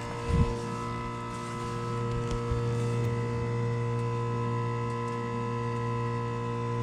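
Vintage 1980s Comfortmaker Snyder General heat pump outdoor unit running just after its defrost cycle has ended, with a steady, many-toned hum. There is a low thump about half a second in.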